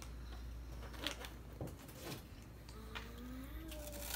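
Small handling clicks at the table, then a child's brief hum for about a second and a half. Near the end comes a crunchy bite into a puffed corn snack.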